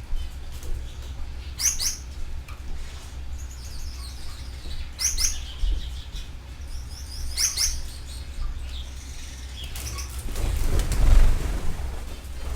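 Canaries in an aviary chirping: short, sharp high calls, three of them loudest, with fainter chirps in between, over a steady low hum. A louder rustle swells up near the end.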